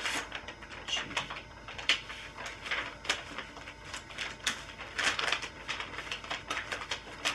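Irregular rustling and light clicks of things being handled at close range, the sound of materials being worked by hand while building a toy airplane.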